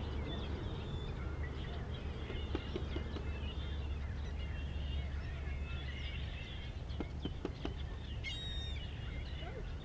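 Small birds chirping and calling again and again over a steady low rumble, with a few soft clicks here and there.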